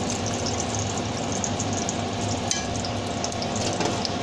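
Hot oil sizzling steadily in a stainless steel frying pan on a gas burner, left over from browning smoked pork loin slices, with one faint click about halfway through.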